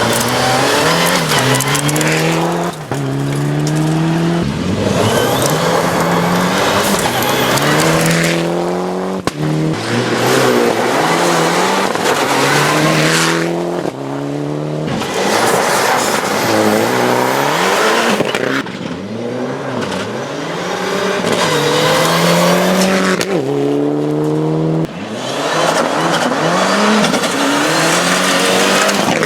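Rally cars at full throttle on a gravel stage, engine pitch climbing through the gears and dropping at each shift, over and over, with a hiss of tyres on gravel.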